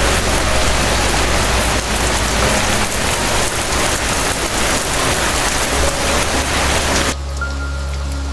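Steady rain falling, a dense hiss with soft background music beneath it. The rain cuts off suddenly about seven seconds in, leaving only the music.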